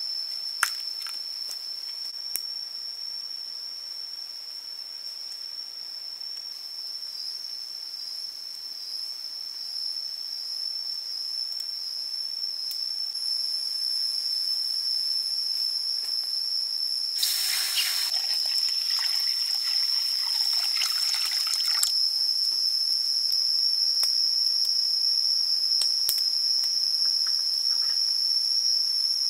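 Steady, high-pitched drone of insects, growing slowly louder, with a harsher rasping burst lasting about four seconds just past the middle.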